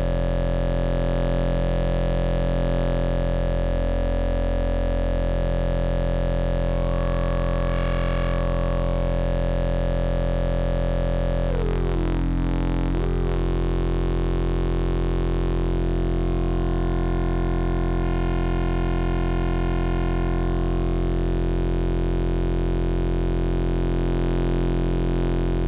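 Low-pitched buzzy drone from a Rossum Electro-Music Trident synthesizer oscillator, held at a steady level. Its timbre shifts several times as the auxiliary oscillators' symmetry and frequency knobs are turned, with a short pitch sweep in the upper tones about twelve seconds in.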